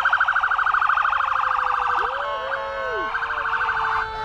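Electronic emergency-vehicle siren in a rapid warble. About two seconds in it switches to a steadier tone for about a second, then goes back to the rapid warble.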